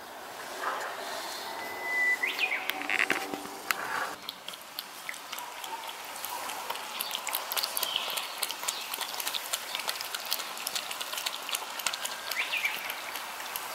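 Two young tabby cats lapping milk from a shallow dish: quick, wet tongue clicks in an uneven patter, starting about four seconds in. A few short, high chirps come before the lapping and again near the end.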